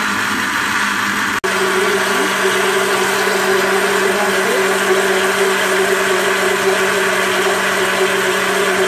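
Electric blender running steadily at speed with an even motor hum, beating egg while oil is drizzled in to emulsify it into mayonnaise. The sound cuts out for an instant about a second and a half in.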